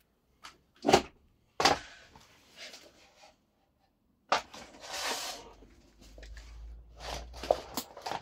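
Irregular plastic and metal knocks and clicks, with a short scraping rustle midway, from a vacuum cleaner's hose handle, metal wand and floor nozzle being handled; the loudest knock comes about a second in. The vacuum's motor is not running.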